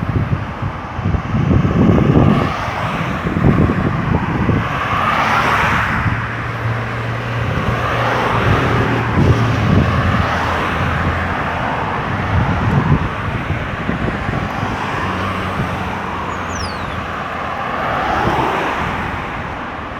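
Highway traffic: cars passing one after another, their tyre and engine noise swelling and fading every few seconds over a steady hum.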